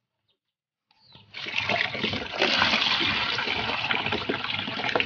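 Water poured in a stream into a plastic tub of land snails, splashing and churning around the shells as they are washed. It starts about a second in, after a brief silence, and runs on steadily.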